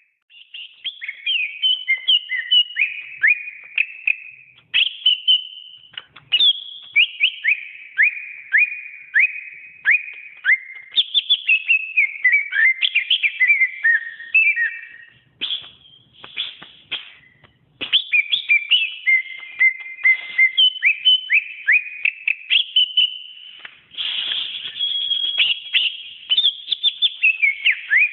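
Cucak ijo (green leafbird) singing a long, fast run of clear whistled notes and chirps, many of them quick downward sweeps, with brief pauses about halfway through.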